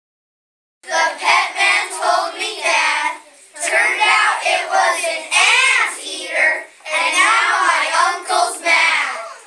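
A class of children singing together in unison, starting about a second in, in three phrases with short breaks between them.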